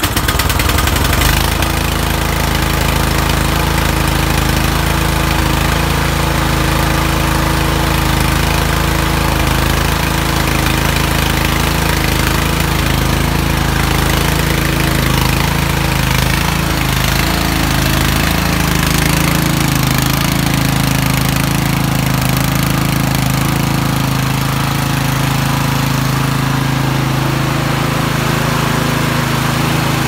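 Cub Cadet 3X 30 HD snowblower's single-cylinder engine running steadily at full throttle just after a recoil-pull cold start at about 16 °F on full choke. Its note shifts slightly a little past halfway.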